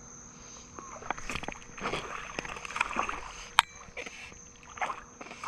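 A hooked bass splashing at the pond surface as it is brought in: a run of irregular water splashes, with one sharp click a little after halfway. A steady, high-pitched insect drone carries on underneath.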